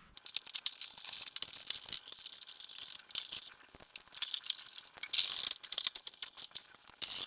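Rapid, irregular light clicking and rattling of hand tools and bolt hardware, in short clusters, as mounting bolts for a running-board bracket are handled and driven.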